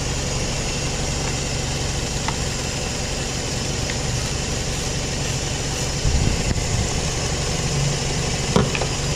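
Scion xA's four-cylinder engine idling steadily, with a few light clicks as the battery terminal nuts are loosened by hand.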